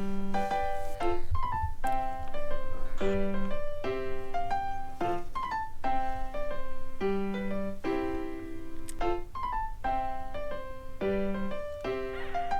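Background music: a solo piano tune with a melody of short notes over lower accompanying notes.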